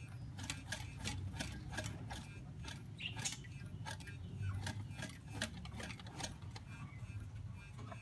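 Parrots eating sweet potato: irregular sharp clicks and crunches of beaks biting into the food, a few a second, thinning out near the end.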